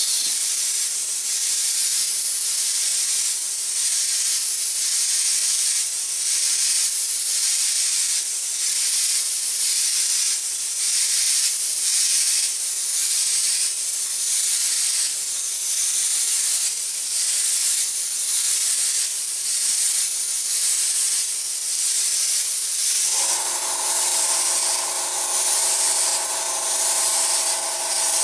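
Airbrush spraying black paint onto the masked sunglasses lenses: a loud, high air hiss that swells and fades in short repeated strokes. About three quarters of the way through, a steady hum comes in under the hiss.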